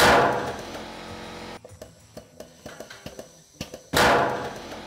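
Two heavy booming hits about four seconds apart, each starting suddenly and ringing away over a second or so, with faint background music between them.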